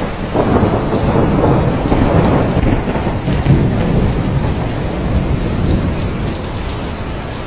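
Steady heavy rain with a long rolling rumble of thunder that swells about half a second in and slowly fades over the next several seconds.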